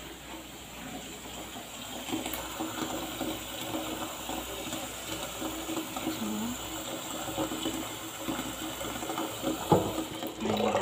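Tap water running from a kitchen faucet into a white plastic pitcher in a stainless steel sink, filling it, starting about two seconds in. A single knock near the end.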